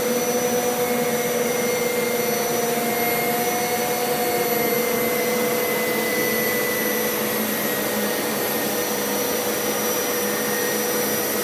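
Hoover Power Scrub Elite carpet washer running steadily as it scrubs and suctions carpet: the motor's whine with spinning brushes, a few held tones wavering slightly in pitch.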